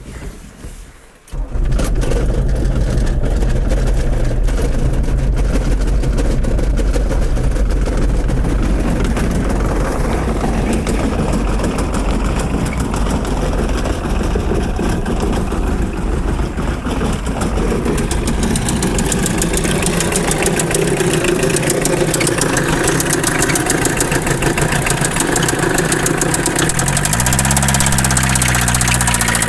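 1981 Volkswagen Rabbit pickup's 1.6-litre naturally aspirated diesel engine starting instantly about a second and a half in, then idling roughly, briefly revved and dropping back near the end. It still runs rough despite a newly fitted remanufactured injection pump and correct timing, a cause the owner has not found.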